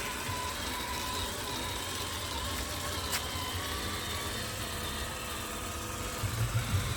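Electric motor and gear drivetrain of a 1/10 scale RC crawler whining steadily as it crawls slowly, the pitch wavering a little. There is a single sharp click about three seconds in and a few low bumps near the end.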